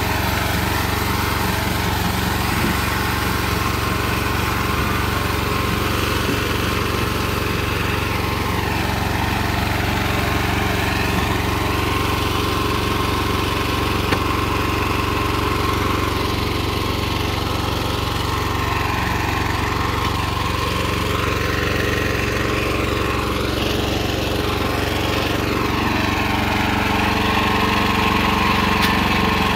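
Small gasoline engine of a portable band sawmill running steadily, a little louder near the end.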